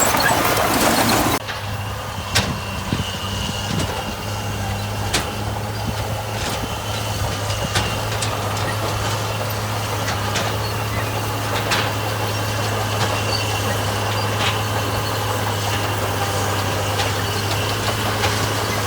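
Heavy construction machine's diesel engine running steadily, with scattered sharp clicks and knocks. A louder, rougher stretch in the first second and a half cuts off abruptly.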